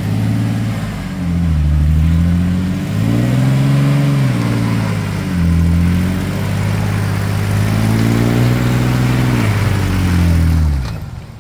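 Toyota 4Runner's V6 engine revving hard under load in several surges, the pitch climbing and falling back as the stuck truck is pulled out of deep mud on a tow rope. The revs drop away about a second before the end.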